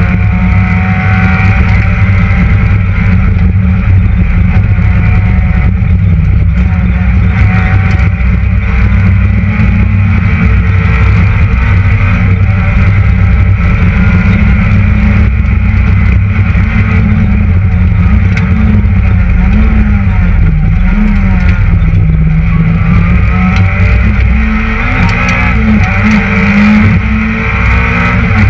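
Citroën Saxo VTS rally car's 1.6-litre four-cylinder engine driven hard, heard from inside the cabin, loud and continuous, its pitch rising and falling with the revs through the stage.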